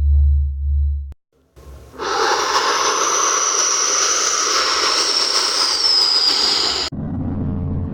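Synthesized space-style sound effects: a low pulsing drone stops about a second in, and after a brief gap a loud hissing wash of noise with a faint high whistle runs for about five seconds, then cuts off suddenly into a low rumble.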